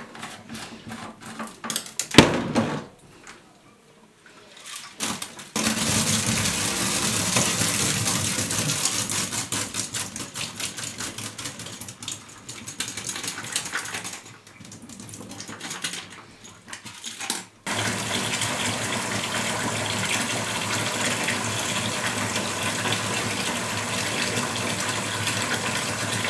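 Water running and pouring into a sink as a plastic coolant expansion tank is emptied and rinsed of soapy water and rice: two long stretches of steady rushing water with a break between them. A sharp knock about two seconds in.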